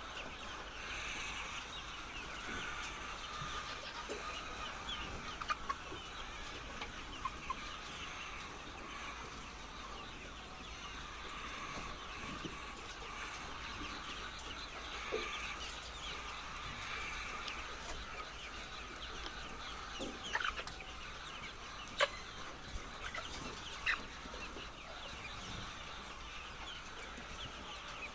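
A large flock of egg-laying hens clucking together in a dense, continuous chatter, with sharp single calls standing out here and there, a few louder ones near the end.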